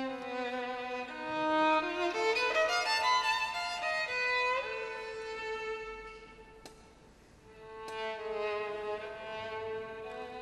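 Solo violin playing a slow, sustained melody over ensemble accompaniment. It swells loudest early on, drops to a quiet passage about two-thirds of the way through, then builds again.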